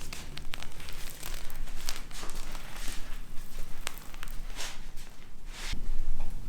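Irregular crinkling and rustling handling noise with a few sharp clicks as epoxy-wet carbon-fibre cloth is worked by hand during a layup, growing louder near the end.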